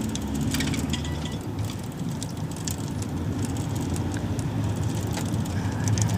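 Route minibus (marshrutka) under way, heard from inside the cabin: a steady low drone of engine and road, with scattered rattles and clicks.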